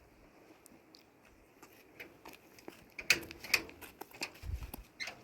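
Quiet, then a handful of sharp clicks and knocks about three seconds in, followed by a low thud.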